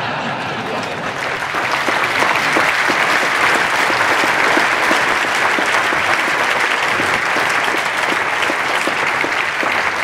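A large audience applauding, a loud, dense, steady clapping.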